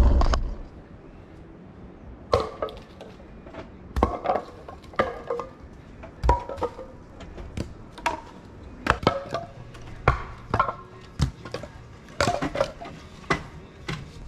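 Firewood logs thrown down from a vehicle roof rack onto a pile of logs: an irregular run of wooden clunks and clatters, about one or two a second, each with a brief ring. It starts about two seconds in.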